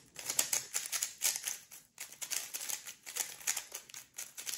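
MoYu Super RS3M 3x3 speed cube turned quickly by hand, its plastic layers clacking in a rapid, uneven run of clicks. The cube is new and dry out of the box, not yet lubricated or set up.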